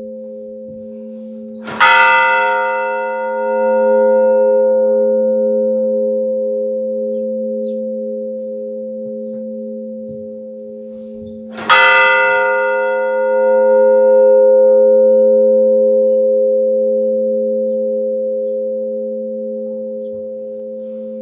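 A large church bell tolling slowly: it is struck twice, about ten seconds apart. Each stroke rings on with a long, slowly fading hum that swells a little after the strike.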